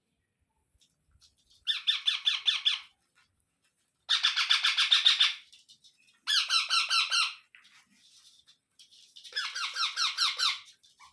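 Indian ringneck parrots give four bursts of rapid, pulsed, high-pitched calls, each lasting about a second, with short pauses between them. The calling comes while the chicks are being fed.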